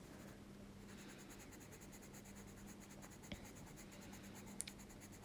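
Faint scratching of a pencil lightly shading on paper, with a low steady hum behind it and two small ticks in the second half.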